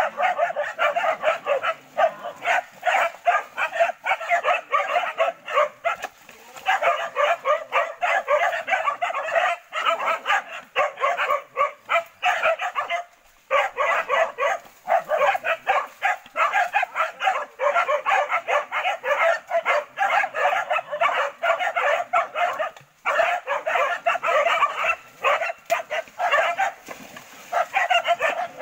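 A pack of hunting dogs barking in fast, overlapping volleys with a few brief lulls, holding a wild boar at bay.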